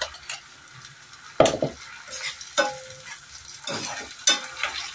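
A steel spoon scraping and stirring onion-and-masala paste around an iron kadhai, several scraping strokes over the faint sizzle of the paste frying.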